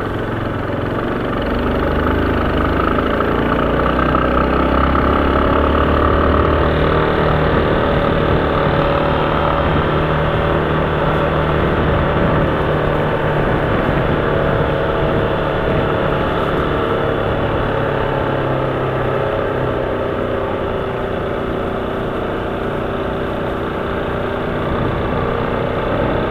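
Motorcycle engine running as the bike rides slowly through town streets, its pitch shifting up and down a few times with the throttle.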